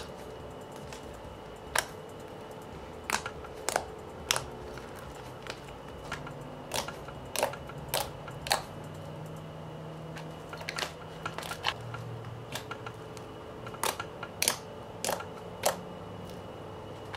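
Thick slime being poked and squeezed by hand, making sharp clicks and pops at an irregular pace.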